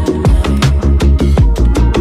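Background electronic music with a fast, heavy beat: deep bass notes and sharp drum hits several times a second.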